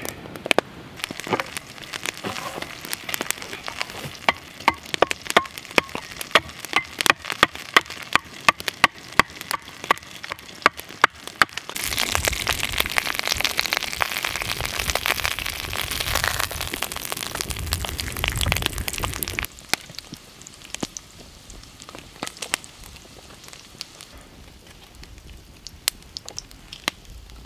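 Bear meat frying in a cast-iron skillet over a campfire. Sharp crackling pops come thick for the first dozen seconds, then a louder steady sizzle runs for about seven seconds, then it drops to a quiet hiss with scattered pops.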